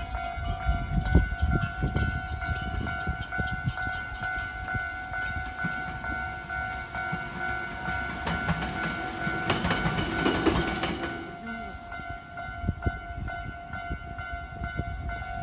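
Level crossing alarm ringing steadily in two tones while a train passes, its wheels rumbling and clattering over the crossing, with a louder rush of noise about ten seconds in.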